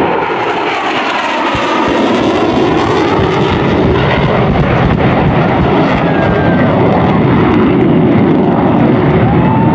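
Twin General Electric F414 turbofans of an F/A-18 Super Hornet making a loud, steady jet roar on a low pass, with a faint whine that glides in pitch.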